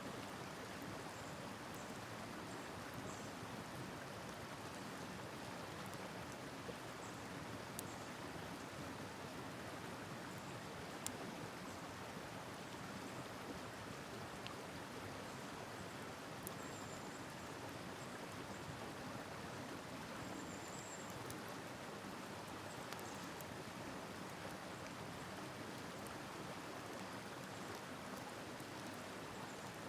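Steady rushing of a river flowing past, with a few faint sharp crackles from a wood campfire, the loudest about eleven seconds in.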